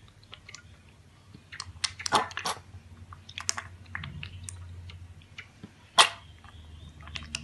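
Piglet drinking milk from a steel bowl: irregular wet smacks and clicks of its snout and mouth in the milk, with one louder smack about six seconds in.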